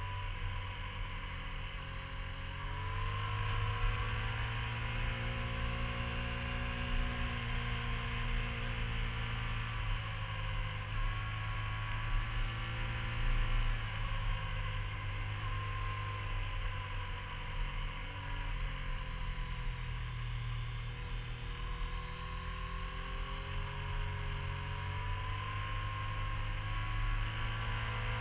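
Sport motorcycle engine running along a twisty road, its pitch rising and falling several times as the rider rolls on and off the throttle through the curves, over a steady low rumble.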